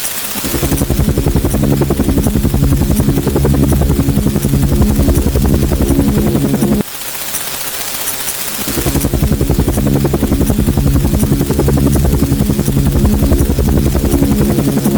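Helicopter sound effect: a rapid, steady rotor-blade chop over the engine. It cuts off about seven seconds in and starts over as a loop, building up again.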